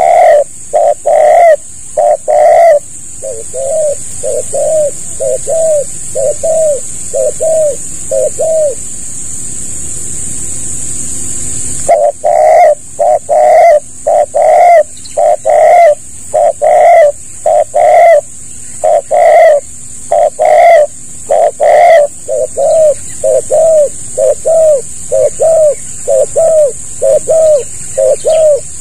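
Spotted dove (tekukur) cooing loudly close to the microphone: a long run of short, low coo notes that breaks off for about three seconds, then starts again and keeps going. A steady high hiss sits underneath and fades for a while in the middle.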